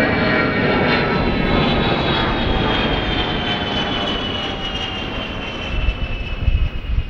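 A Boeing E-3A Sentry's four TF33 turbofan engines run loud as the jet draws away after passing overhead. The noise is dense, with a whine of several tones that slowly fall in pitch and fade. Gusts of wind buffet the microphone with low thumps near the end.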